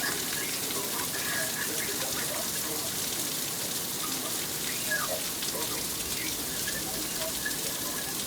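Heavy thunderstorm rain falling steadily.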